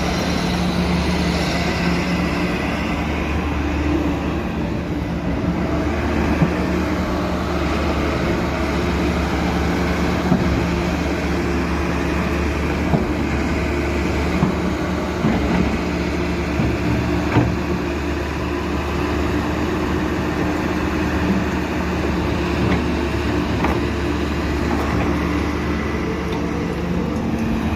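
Caterpillar 320D2 excavator's diesel engine running steadily, with a few short knocks along the way.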